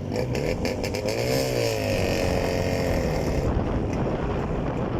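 Jawa 350 two-stroke twin motorcycle running while ridden. The engine note rises and then falls back about a second in, over a constant rush of wind and road noise.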